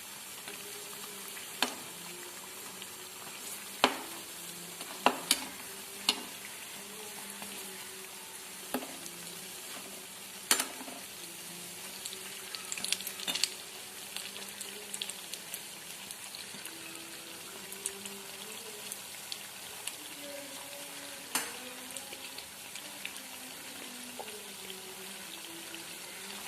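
Potato-and-semolina fingers deep-frying in sunflower oil, a steady sizzle. A utensil clicks and knocks against the pan a dozen or so times as the pieces are turned over.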